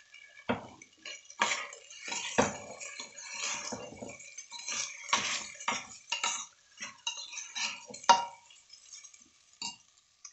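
Slotted steel spoon scraping and clinking against the inside of a pressure cooker, in irregular strokes, as rice, dal and chopped vegetables are stirred and dry-roasted on a low flame; one sharper clink about eight seconds in.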